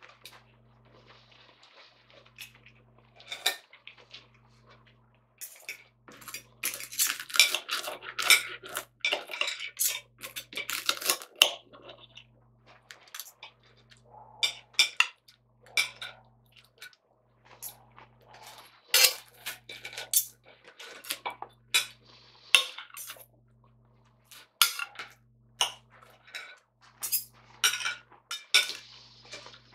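Metal knife and fork clinking and scraping against a ceramic plate while cutting up and eating a fried breakfast. The strokes come irregularly, sparse at first and busiest from about six to twelve seconds in.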